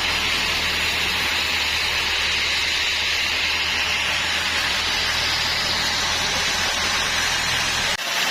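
Sawmill machinery running steadily: a low engine hum under a continuous hiss, with a very brief dropout near the end.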